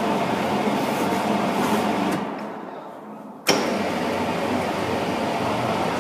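Seitan maker's dough-kneading mixer running steadily, then winding down to a stop about two seconds in. A sharp click a second and a half later, and the machine runs again at full level.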